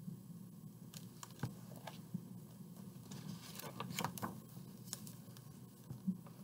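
Hardcover picture book being handled and a page turned: soft paper rustling with scattered light clicks and taps, busiest about three to four seconds in, when the page sweeps over.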